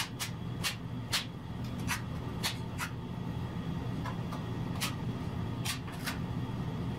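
Trowel scraping tile adhesive across a floor patch: about ten short, sharp scrapes at uneven intervals as the adhesive is smoothed to an even thickness, over a steady low hum.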